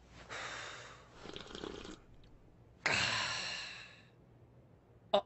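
A cartoon character sipping hot tea from a cup, then letting out a long breathy sigh that fades away.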